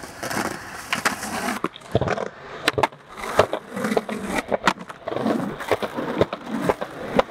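Skateboard wheels rolling on concrete, with several sharp clacks of the board and trucks striking and grinding along a concrete curb ledge from about two and a half seconds in.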